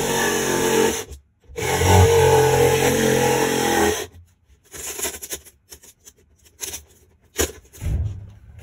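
Cordless drill running in two steady runs, driving into the plywood wall: the first stops about a second in, and after a short pause it runs again for about two and a half seconds. Then come a few light knocks and handling sounds.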